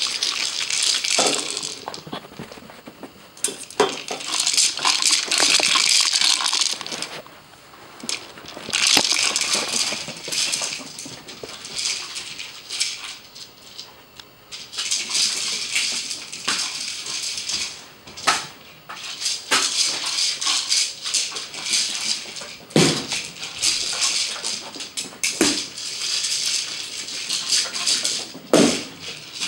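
A small hard orange toy ball rattling as a corgi puppy pushes it across carpet with its nose. The rattling comes in bursts of one to a few seconds with short pauses, and a few sharp knocks near the end.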